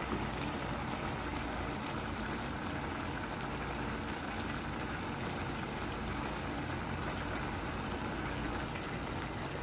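Milkfish paksiw simmering in a pan, its vinegar-and-tomato sauce bubbling steadily. The stew is near the end of its cooking.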